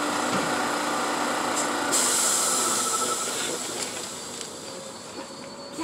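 New York City Subway A train standing at the platform with its doors just closed; a sudden sharp air hiss about two seconds in as the brakes release, then the train beginning to pull away.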